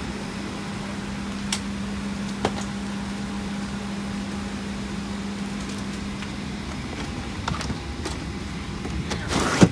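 Steady hiss and hum of a parked Boeing 737-800's cabin ventilation, heard from inside the cabin. A low steady tone stops about seven seconds in. A few sharp clicks come early on, and a short rustling thump near the end is the loudest sound.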